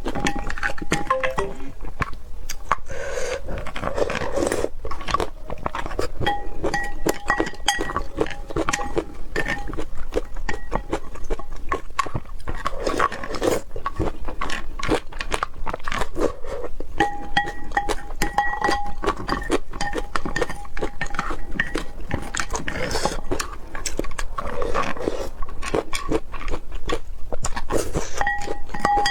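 Close-miked eating sounds: crunchy bites and chewing, a steady run of sharp crackles and clicks, with wetter chewing in between.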